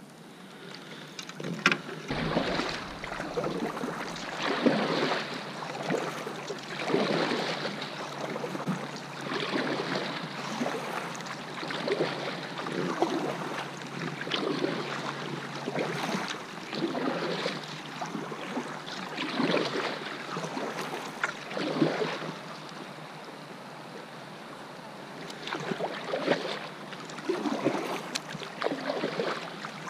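Double-bladed kayak paddle strokes in calm water, a splash and drip a little more than once a second as the kayak is paddled along. The strokes ease off for a few seconds near the end, then start again.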